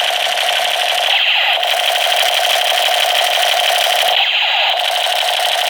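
A loud electronic alarm-like buzzing tone with a fast flutter, repeating in stretches of about three seconds with a short break between them.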